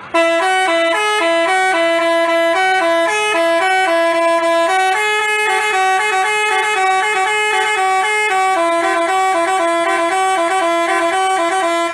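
Telolet basuri musical bus horn playing a tune of short stepping notes, loud and continuous.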